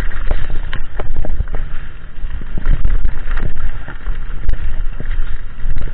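Mountain bike riding fast down a rough dirt and gravel trail: a steady low rumble of wind buffeting the camera microphone, with frequent irregular knocks and clatters as the bike goes over bumps.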